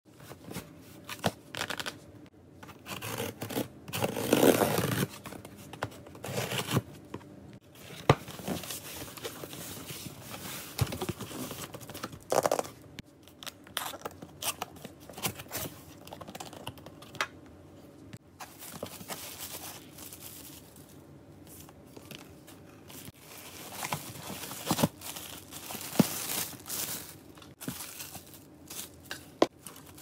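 Cardboard packaging being opened and unpacked by hand: irregular tearing, scraping and rustling of the cardboard box and plastic wrap, with scattered sharp clicks and taps. The loudest stretch is about four seconds in.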